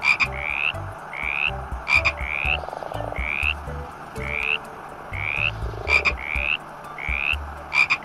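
Animal calls: a short rising chirp repeated about once a second over a dense background chorus, with sharp clicks every couple of seconds.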